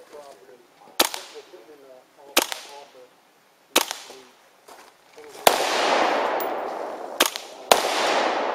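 Rifles test-fired one shot at a time: three sharp single shots about a second and a half apart, then a louder shot followed by a steady rushing noise, with two more shots close together near the end.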